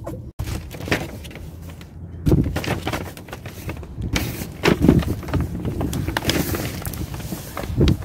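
Steady vehicle noise with irregular knocks and bumps throughout.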